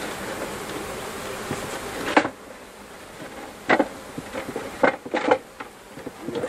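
Honeybees buzzing close by in a dense hum. About two seconds in there is a sharp knock and the buzzing drops much quieter, followed by a few more knocks.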